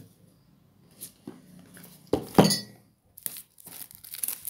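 Hands handling a phone box: a light tap about a second in, a louder knock with a short clink just after two seconds in, then plastic wrap crinkling near the end.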